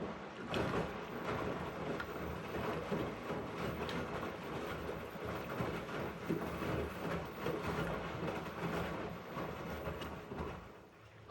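Elin washing machine running its second rinse: the drum turning with a low motor hum and water sloshing, dying down near the end as the drum comes to a stop.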